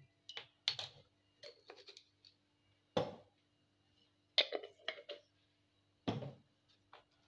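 Scattered light clicks and knocks, about a dozen, of kitchen utensils and containers being handled around a stainless steel mixing bowl, over a faint steady hum.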